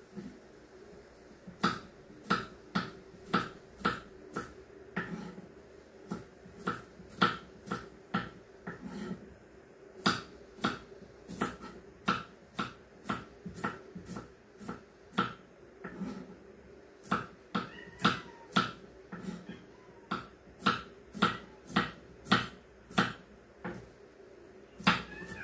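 Kitchen knife cutting on a wooden chopping board: sharp knocks about two a second, in runs broken by short pauses.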